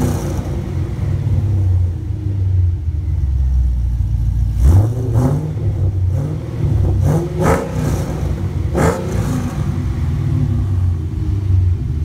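Pontiac GTO V8 idling through newly fitted long tube headers, catless mid pipes, an X-pipe and a Kooks exhaust, with a deep steady drone and about four quick throttle blips in the middle and latter part. The exhaust has a nice tone, no longer sounding like a stock GTO.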